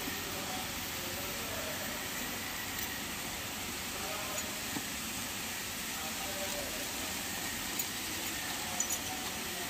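Steady even hiss of background noise, with a few faint crinkles from a clear plastic bag being handled near the end.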